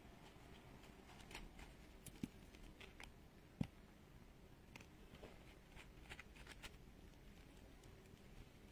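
Near silence with faint scattered clicks and taps from handling a plastic squeeze bottle of liquid silicone glue over felt, with one sharper click about three and a half seconds in.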